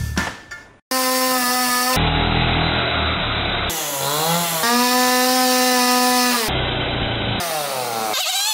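A few sharp hammer blows on a metal spike driven into the wood, then a cut to a petrol chainsaw running steadily at high revs. Its pitch dips briefly about four seconds in and rises near the end.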